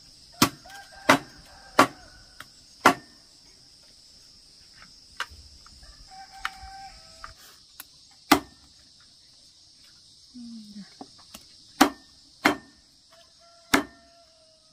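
Heavy cleaver chopping cooked chicken on a thick wooden chopping block: about eight hard chops, four in quick succession in the first three seconds, then scattered single chops. A steady insect drone and chickens calling sound in the background.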